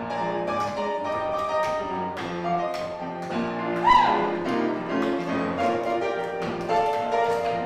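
Swing piano accompaniment with tap-dance steps clicking along over it. A short swooping high note about four seconds in is the loudest moment.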